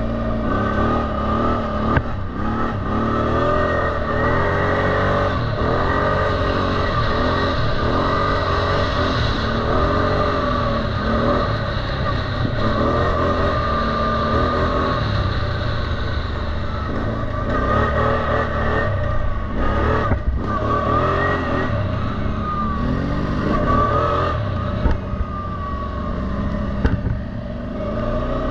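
CF Terralander 800 quad's engine running under way on a dirt track, heard from the rider's seat, its pitch rising and falling again and again as the throttle is opened and eased. A few sharp knocks come in the second half.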